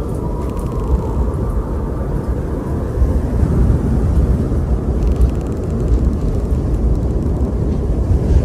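Wind blowing steadily as a low, even rumble.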